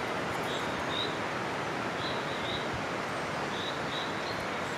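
Steady outdoor background noise with faint, short high chirps scattered through it, some in quick pairs.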